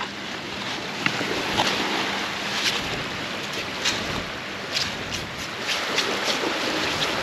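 Ocean surf and wind buffeting the microphone in a steady rushing noise, with scattered short sharp scrapes or ticks.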